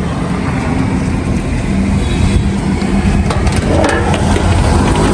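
A steady low motor-like rumble with a hum, with a few light metal clinks of a ladle against a steel broth pot about three to four seconds in.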